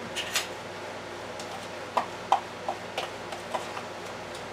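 A short rustle, then about six light clicks of a spoon knocking against an opened jar of powdered chicken broth base as it is scooped out.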